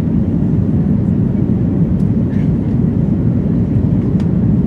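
Steady low rumble of engine and airflow noise inside the cabin of an Airbus A330-200 in flight, with a couple of faint ticks.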